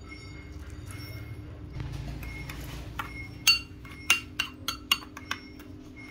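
Metal spoon stirring a wet chili-garlic dipping sauce in a ceramic bowl, clinking sharply against the bowl about eight times in quick succession from about three seconds in.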